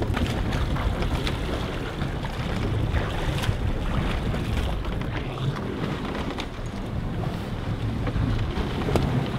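Boat engine running with a steady low hum, under wind noise and sea sounds, with a few light knocks.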